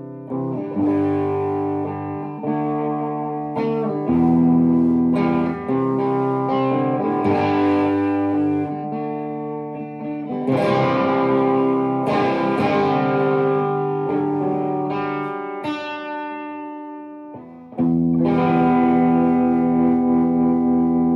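Gordon Smith GS60 electric guitar on its hot bridge humbucker, tone rolled slightly off, played through a Vox AC30 amp. Chords are strummed and left to ring, a new chord every second or two, and the last chord is held and then cut off.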